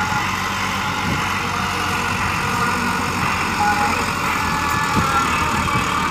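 Massey Ferguson 375 tractor's diesel engine running steadily as the tractor works soil with its rear blade.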